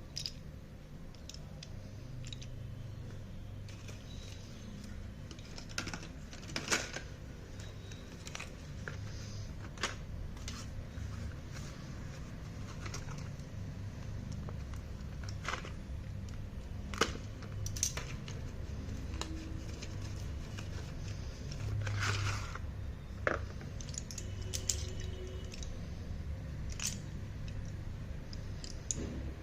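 Close-up handling of a parcel and its slate pencils: scattered sharp clicks and crinkles over a steady low hum, with a longer tearing or scraping sound about 22 seconds in.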